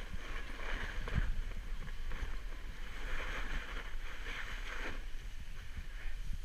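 Snowboard sliding and scraping over snow in three long swells, with wind rumbling on the microphone.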